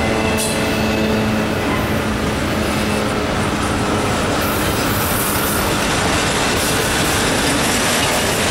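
Double-stack intermodal well cars rolling past close by: a steady, loud rumble of steel wheels on rail with rhythmic clickety-clack. A faint steady tone sits under it for the first two or three seconds, then fades out.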